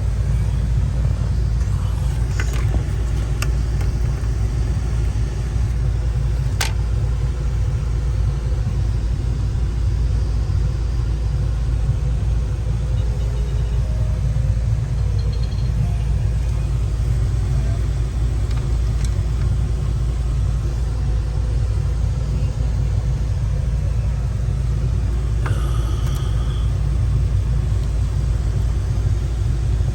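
Ruud gas furnace running with a steady low rumble, with a few light clicks and taps over it.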